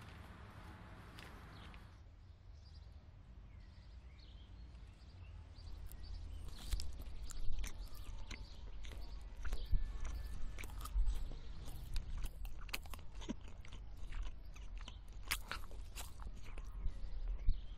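Paper wrapping rustling briefly at first, then a person biting into and chewing a sandwich, with repeated crunchy bites and mouth clicks from about six seconds in.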